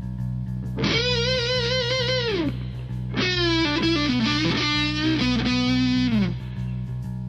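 Background music: a lead electric guitar plays a long held note with wide vibrato, then a run of bending notes that slide down, over a steady low drone.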